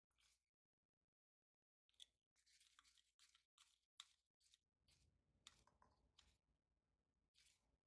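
Near silence, with faint scattered clicks and scrapes.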